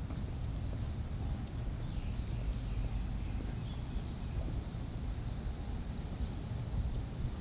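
Outdoor ambience: a steady low rumble of wind on the microphone, with faint bird chirps scattered through it.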